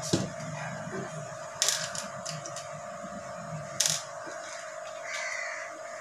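Sharp clicks and knocks from a speaker driver being handled and fitted into the opening of a home theater tower cabinet: three of them, near the start, about a second and a half in and about four seconds in, over a steady background hum.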